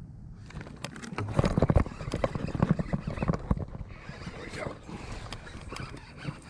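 A bass being hooked on a jig and reeled in to a kayak: a burst of rapid thumps and knocks about a second in, easing to lighter handling clicks.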